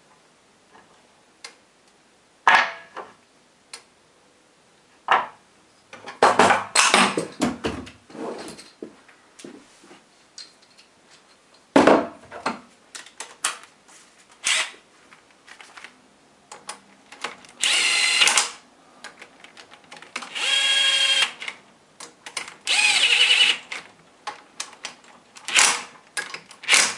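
Clicks and clatter of small metal parts, then three short whirring runs of a power drill-driver, each about a second long, running the cylinder head stud nuts down on a 156FMI (CG125-type) pushrod engine before they are properly torqued.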